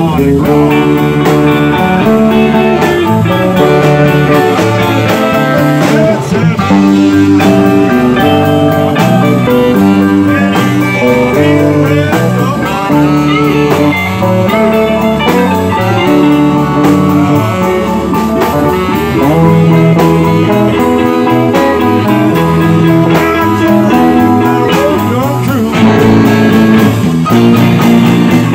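Live swamp pop band playing an instrumental passage, with electric guitars over drums.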